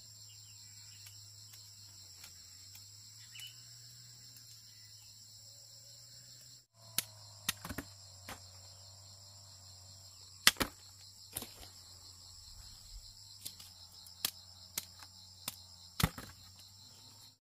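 Steady chirring of insects, with sharp knocks or taps at irregular intervals through the second half, about a dozen, the loudest about ten and a half seconds in and again near the end.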